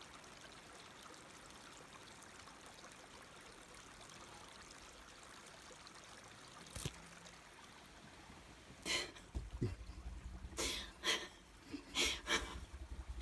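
A faint steady hiss with a single sharp click about seven seconds in. From about nine seconds in, a string of short, breathy, stifled laughs from a woman, with a low rumble under them.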